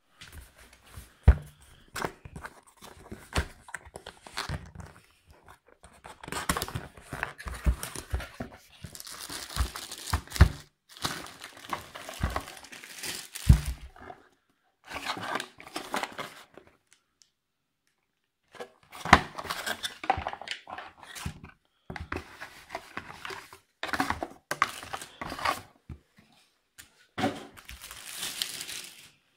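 Cardboard box and plastic wrapping being opened and handled: rustling, tearing and crinkling, broken by sharp knocks and taps as pieces are moved and set down. There is a short pause about two-thirds of the way through.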